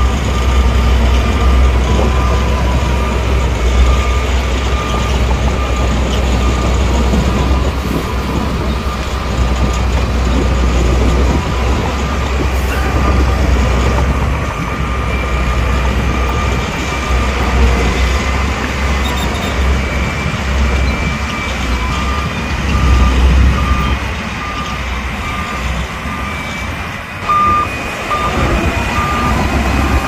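Bulldozer's diesel engine running with a steady low rumble, while its reversing alarm beeps repeatedly at an even rate, the beeps clearest near the end.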